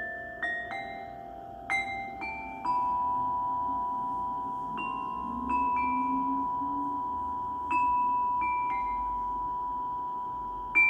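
Pitched mallet-struck percussion notes played slowly as part of a sound bath, in small groups of two or three with pauses between, each note ringing on for several seconds.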